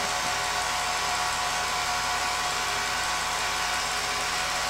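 Film projector running steadily: a constant mechanical whir of its motor and mechanism.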